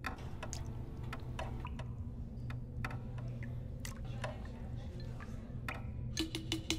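Steady low hum with scattered, irregular clicks and ticks. About six seconds in, a quick, even tapping rhythm starts.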